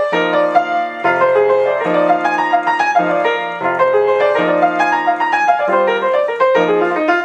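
Jazz piano playing: the left hand holds chords that change about once a second while the right hand plays quick melodic groups that move around the middle of the range rather than straight up or down.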